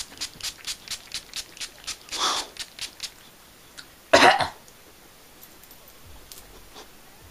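Pump-mist bottle of face makeup setting spray spritzed rapidly, about a dozen short hissing puffs at roughly four a second, too much at once. A person then coughs on the strong-smelling mist, loudest about four seconds in.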